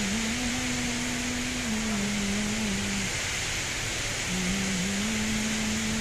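Steady rushing of a large indoor waterfall. Over it, twice, a low sustained tone holds for a second or two at a time and steps slowly in pitch, like a slow melody.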